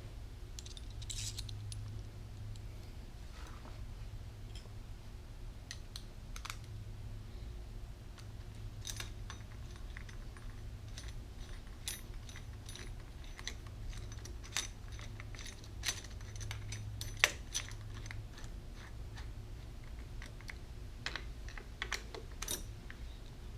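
Scattered light metallic clicks and taps, with a sharper click about two-thirds of the way through, as a chrome drink-holder perch mount and its screws are handled and fitted. A faint steady low hum runs underneath.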